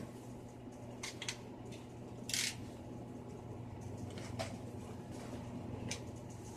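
A shipping package being handled and opened: a few scattered clicks and crinkles, with one longer rustle about two and a half seconds in, over a steady low hum.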